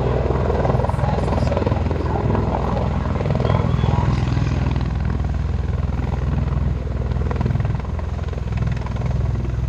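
Aircraft engine and propeller or rotor drone, a steady low pulsing hum that eases slightly near the end.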